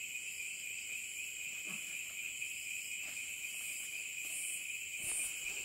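Night insect chorus: crickets or similar insects holding two steady shrill tones. About four seconds in, a higher rhythmic chirping joins in.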